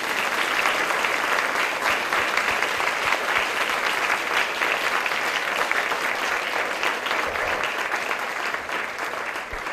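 Audience applauding: dense, steady clapping from a large crowd that begins to taper off near the end.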